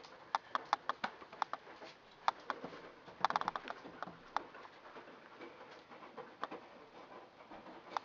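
A Siberian husky's claws clicking and tapping on a hard floor as it moves around, in irregular sharp clicks that come thickest about three seconds in and thin out afterwards.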